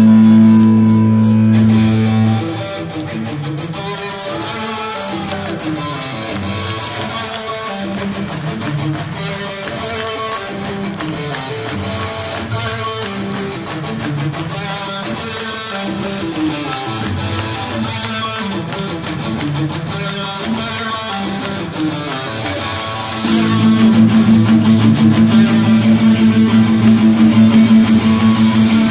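Background music led by guitar: a loud held chord at the start, a quieter passage of picked notes, then loud strummed chords again for the last several seconds.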